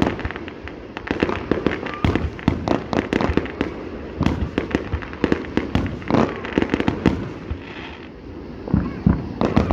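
Fireworks going off in a display: many sharp bangs and crackling bursts in quick, irregular succession, several a second.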